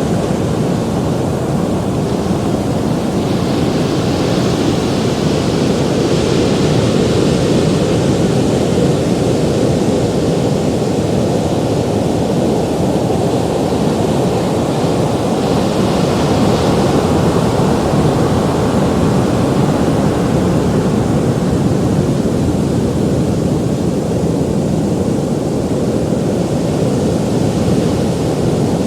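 Ocean surf: a steady, dense rumble of waves breaking, swelling a little about four seconds in and again about sixteen seconds in.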